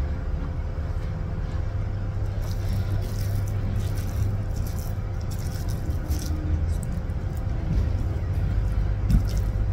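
Bare fingers squishing and mixing rice and urap (grated coconut with greens and cucumber) on a plate: soft, irregular rustles starting a couple of seconds in, over a steady low hum.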